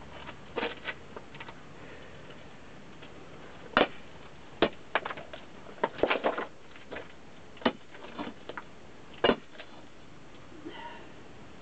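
Irregular sharp knocks and clicks, with a few loud single cracks among them, then a short high-pitched call near the end.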